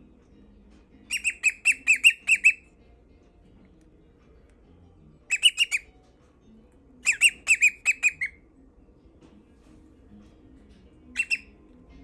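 Cockatiel singing in four bursts of quick, evenly spaced chirps, about five notes a second. The first and third bursts are the longest, and a short two-note phrase comes near the end.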